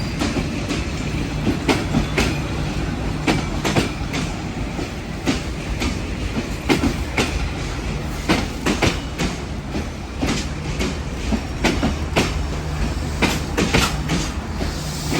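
Passenger train rolling along the track, its wheels clicking irregularly over rail joints over a steady low hum.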